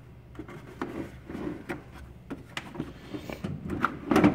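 Tools and cases being handled: a string of short clicks, knocks and rubbing, with a louder knock near the end.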